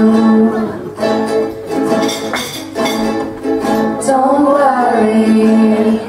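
Young female voices singing long held notes over strummed acoustic guitar and ukulele, in a live acoustic band performance.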